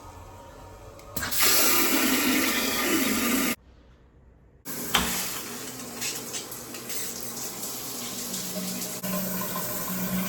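Water running hard from a tap into a sink, a steady rush that stops abruptly for about a second and then starts again.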